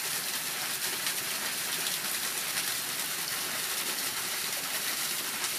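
Water running down a partly frozen waterfall hung with icicles, a steady hiss with no distinct splashes.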